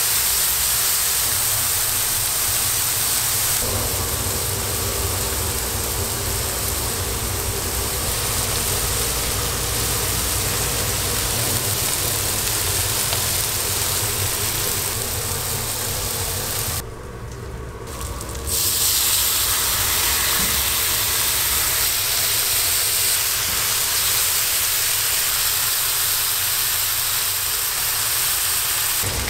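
Beef burger patties sizzling on a flat-top griddle: a steady, dense hiss that drops away for about a second and a half partway through.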